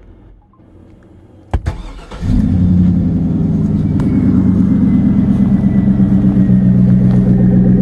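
Pickup truck engine started: the starter cranks briefly about a second and a half in, the engine catches, then idles with a steady low rumble through its newly fitted dual exhaust.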